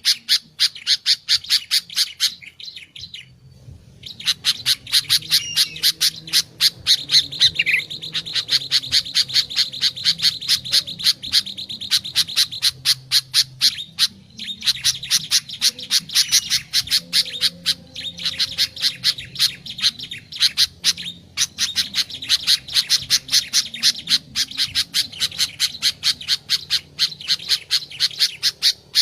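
Sooty-headed bulbul (kutilang) calling in a fast, unbroken run of short chirping notes, several a second, with a short break about three seconds in.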